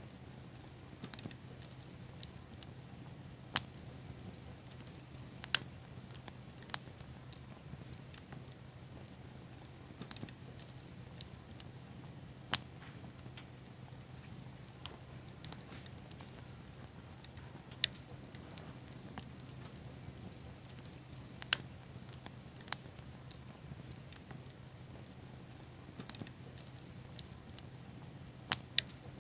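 Small fire of pine cones and tree seed pods crackling: sharp, scattered pops every one to few seconds over a faint steady hiss.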